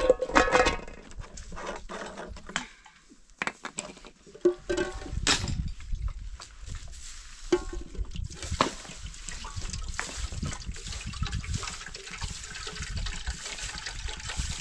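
Scattered knocks and a few short calls in the first half, then a steady hiss of water, trickling and splashing, from a little past the middle.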